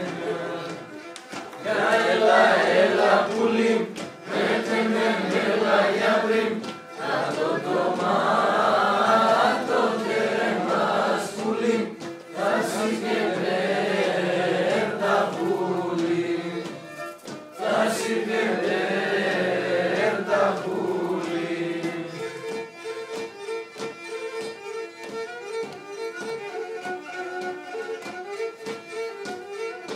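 Several people singing together with a bowed string instrument. About 22 seconds in the singing stops and the fiddle plays on alone in short repeated notes.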